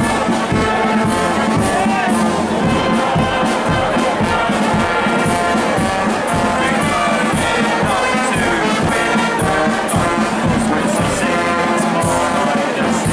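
Brass band playing in a street procession, with frequent drum strikes under the brass and crowd noise behind.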